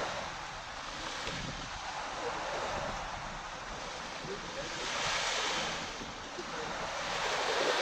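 Small Caribbean waves breaking and washing up the sand close by, in repeated surges that swell about five seconds in and again near the end.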